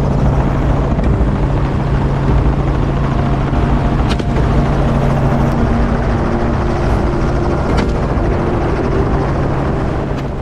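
Helicopter in flight, heard from aboard through the open door: a steady, loud drone of rotor and engine.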